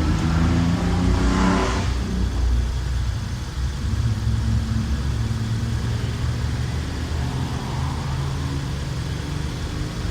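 Volkswagen Group 1.4 TSI petrol engine running just after a cold start, a little louder for the first two seconds and then running steadily. It carries the knock that the owner puts down to a failing cam phaser (variable valve timing adjuster) that is due for replacement.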